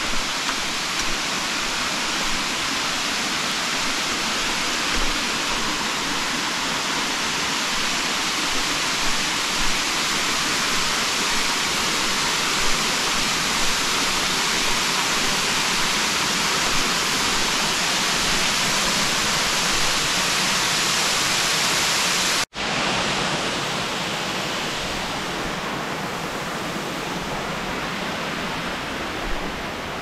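Waterfall rushing: a steady, dense roar of falling water. About three-quarters of the way through the sound cuts out for an instant and returns slightly softer.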